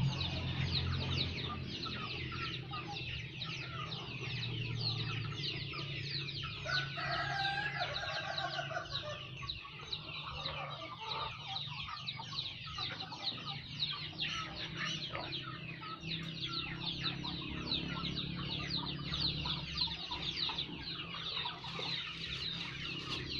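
Chickens clucking and cheeping continuously in their coops, a dense chatter of short high calls, with one longer call about seven seconds in.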